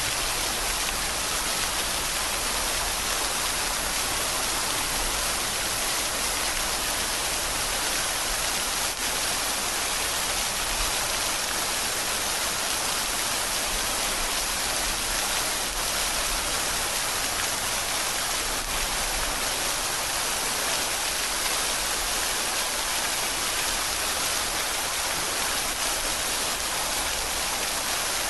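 Steady rain falling, an even hiss with no breaks or changes.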